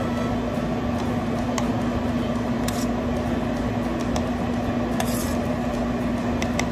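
Steady machine hum with a constant low tone, with a few faint clicks scattered through it.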